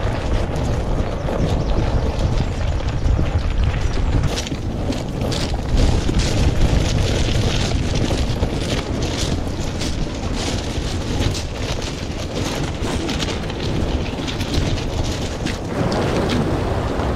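Wind buffeting the microphone in a heavy low rumble, with irregular splashes of sea water against a kayak, busiest through the middle.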